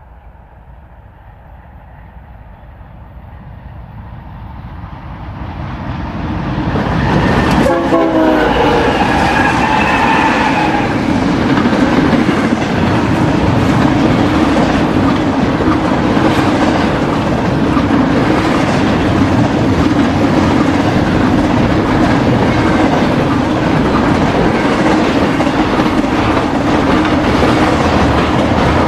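BNSF intermodal freight train approaching and passing: diesel locomotives growing louder over the first seven seconds, a short horn note dropping in pitch as they pass about eight seconds in, then the steady rumble and clickety-clack of double-stack well cars and trailer-carrying spine cars rolling by.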